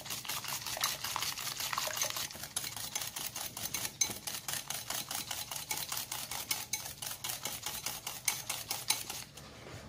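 Wire balloon whisk beating egg whites thinned with hot water in a ceramic bowl, the wires clicking against the bowl in rapid, even strokes of about five a second. It stops near the end.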